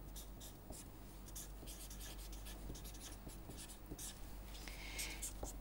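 Felt-tip marker writing on paper: a series of short, faint scratchy strokes, over a low steady hum.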